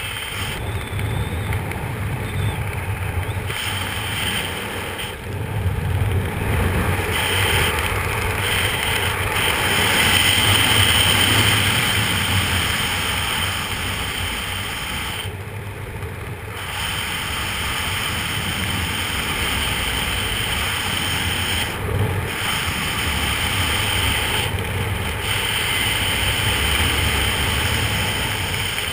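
Wind rushing over a GoPro camera's microphone during parachute canopy flight, a steady rush of air that swells and eases.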